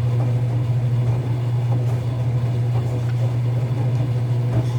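Enxuta Euromatic washing machine running, with a steady low motor hum through its rinse and spin programme.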